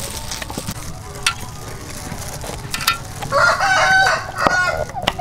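A rooster crows, one long call starting a little over three seconds in and the loudest sound here, over a few sharp knife strikes on a wooden chopping board.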